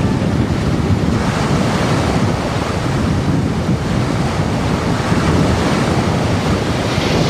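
Rough sea surf surging and breaking over rocks as a steady roar, with wind on the microphone.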